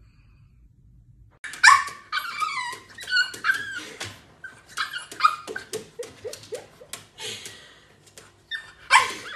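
A small puppy whining and yapping in a quick string of short cries that bend up and down in pitch, starting about a second and a half in, as it begs for food.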